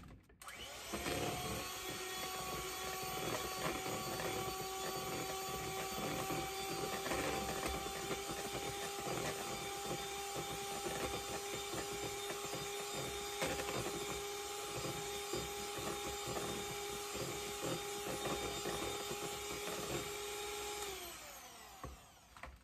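Electric hand mixer beating eggs and softened butter in a mixing bowl: a steady motor whine that starts about a second in, holds, then winds down and stops near the end.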